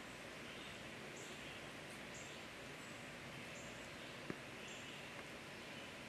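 Faint outdoor ambience: a steady hiss of background noise with short, high chirps that come about once a second. A single sharp click sounds a little past the middle.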